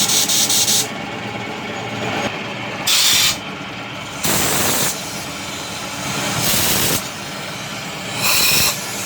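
Short bursts of loud hissing, each about half a second to a second long, coming every one to two seconds over a steady mechanical hum.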